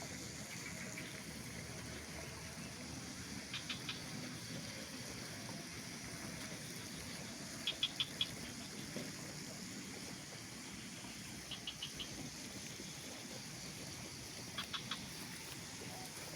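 Outdoor mountain ambience: steady background hiss, with a small animal's call of three or four quick, high chirps repeated four times, about every four seconds.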